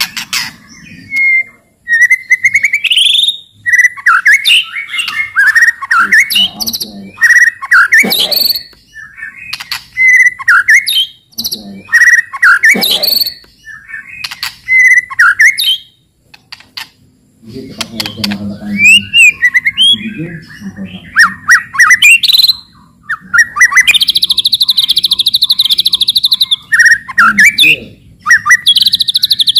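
White-rumped shama singing loudly: varied whistled phrases with rising and falling slides, separated by short pauses, then a long, harsh, rapid rattling chatter, the 'cetrekan' call, that starts about four-fifths of the way through with one brief break.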